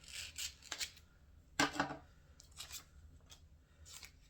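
Scissors cutting away the peeled-off backing paper of an adhesive vinyl skin: a few short snips and paper crinkles, the loudest about a second and a half in.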